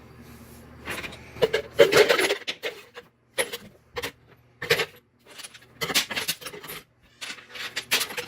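Rusty steel nuts and bolts clattering and jangling as they are dropped by the handful into a container, in a string of separate metallic bursts.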